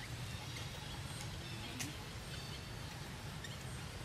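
Outdoor ambience: a steady low rumble with faint, short high chirps and a few light clicks, the sharpest click about two seconds in.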